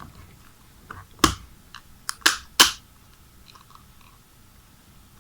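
Parts of an opened Apple MagSafe charger being removed by hand: about six sharp plastic clicks and snaps in quick succession between one and three seconds in, three of them louder.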